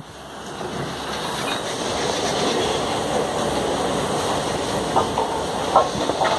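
Steady, dense machinery noise in a railway workshop. It dips sharply at the start and builds back over about a second, with a couple of short sharp knocks near the end.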